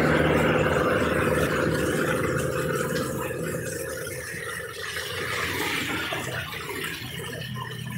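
Heavy rain on a wet street while a truck drives past, its engine hum fading over the first few seconds under the constant hiss of rain and tyre spray. About five seconds in, a car passes through the water with a louder swish of tyres.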